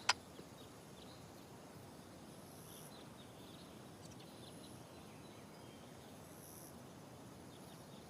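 Faint forest ambience: a low steady hiss with insects chirring high-pitched in short spells. A single sharp click comes right at the start.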